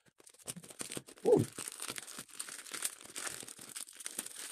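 A plastic-wrapped cardboard parcel being cut and torn open by hand: plastic film and paper crinkling and crackling throughout, with a louder moment a little over a second in.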